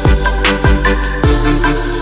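Background music: an electronic beat with a deep kick drum whose pitch falls on each hit, roughly every half second or so, under sustained chords and crisp percussion.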